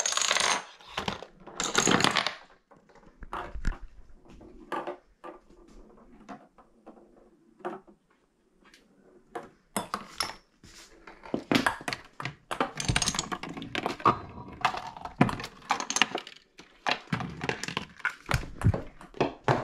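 Home-made chain-reaction contraption running: dominoes toppling and small objects knocking, rattling and dropping along wooden tracks and plastic cups. It comes as irregular clusters of clicks, clatters and thunks with short lulls between.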